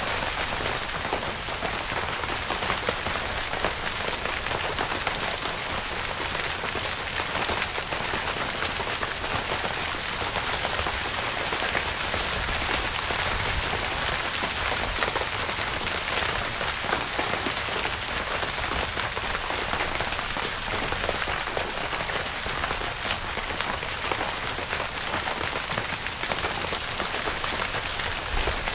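Steady rain falling on a tent, a dense, even spray of small drop hits on the fabric.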